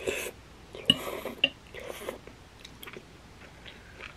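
A person eating jajangmyeon (black bean sauce noodles), slurping and chewing. Three short slurps come in the first two seconds, with a couple of sharp wet mouth clicks, then quieter chewing.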